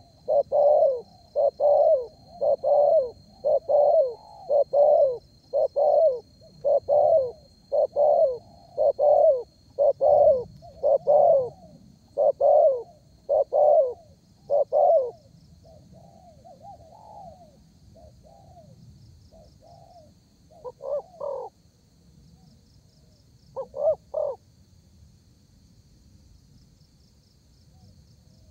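Spotted dove cooing in a fast, even series of loud coos, about one and a half a second, for the first half. Then a few soft notes follow, with two more loud coos a few seconds apart, and it falls quiet near the end.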